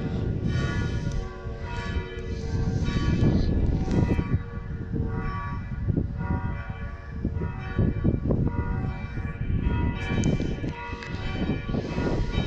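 FelsenKirche church bells ringing, several bells at different pitches struck over and over and overlapping, with a loud, fluctuating low rumble underneath.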